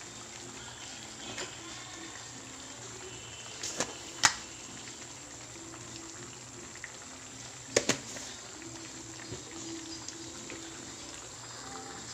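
Squash and broth simmering in a metal wok: a steady low bubbling, with a few sharp clicks or pops standing out, the loudest about four seconds in and two more near eight seconds.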